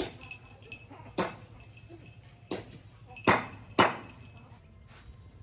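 Five sharp knocks at uneven spacing over about four seconds, each ringing briefly; the last two, about half a second apart, are the loudest.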